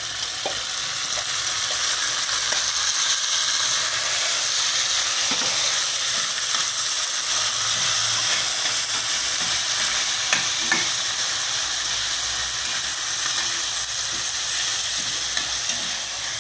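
Chicken pieces frying in hot oil with onions and garlic, a steady sizzle that builds as the meat goes into the pan, stirred with a metal spatula that clicks against the pan a few times.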